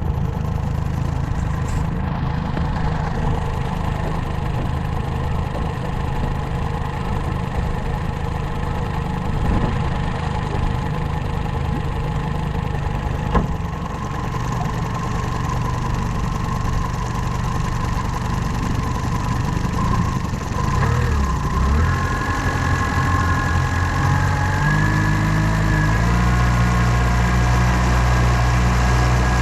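New outboard motor running during break-in, steady at low speed, then its engine speed stepped up twice over the last several seconds.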